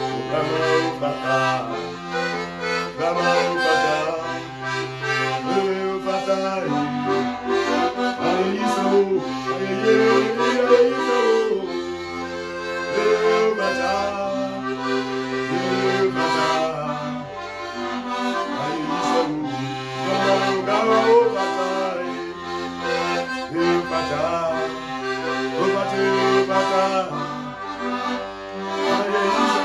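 Piano accordion playing a worship song, with held bass notes that change every second or two under the melody, and a man's voice singing along.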